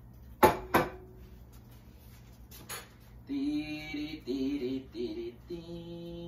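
Two sharp knocks about half a second in, the first leaving a brief ringing tone, then a man humming a tune from about three seconds in.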